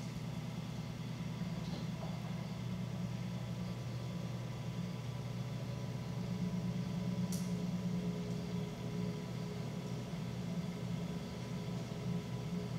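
Electric potter's wheel motor running with a steady low hum while a large clay jar is thrown on it.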